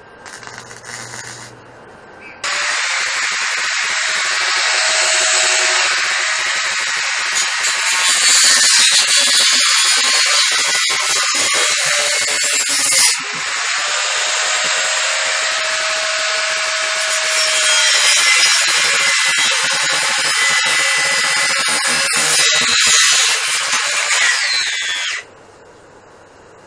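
Angle grinder running against the steel angle-iron frame, grinding down welds: a loud, harsh, steady grinding noise with a faint motor whine. It starts a couple of seconds in, breaks off briefly about halfway, and stops shortly before the end.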